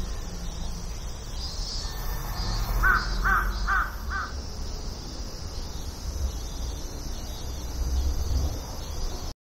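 A crow cawing four times in quick succession, about 0.4 s apart, a few seconds in.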